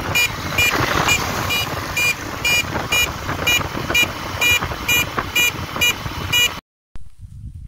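Motorcycle horn beeped over and over, about two short beeps a second, over the engine and wind noise of the riding bike; it all cuts off suddenly near the end.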